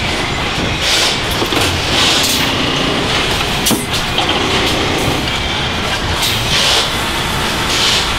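Car-factory assembly-line noise: a steady machinery din, with several short hissing bursts and a sharp click near the middle as a battery-loading assist arm moves.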